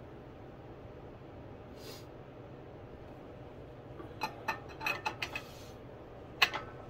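Metal clicks and clinks from a bottle-jack hydraulic press as its steel pump handle is fitted into the jack and worked: a quick cluster of light clicks about four seconds in and one sharper click near the end.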